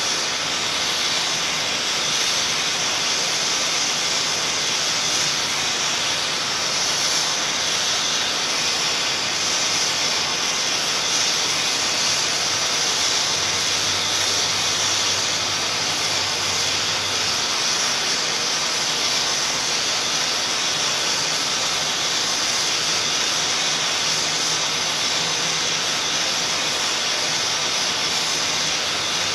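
Steady, unbroken hiss of white noise at an even level.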